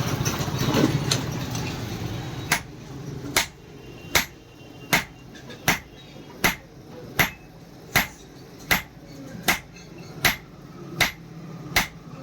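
Blacksmith's hand hammer striking iron being forged into a knife blade, about thirteen evenly spaced blows, a little more than one a second. A steady low hum fades out before the hammering starts.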